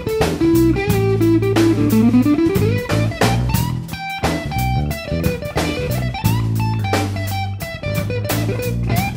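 Background music: a guitar melody with sliding notes over bass and a steady drum beat.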